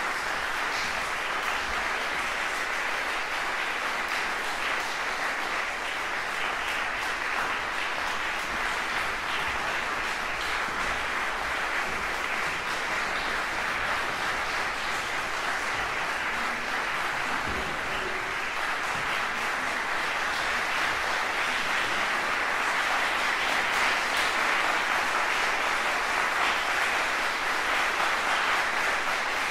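Audience applauding in a concert hall, a dense steady clapping that grows a little louder near the end.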